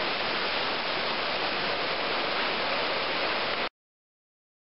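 Waterfall rushing steadily into a creek pool, cutting off suddenly near the end.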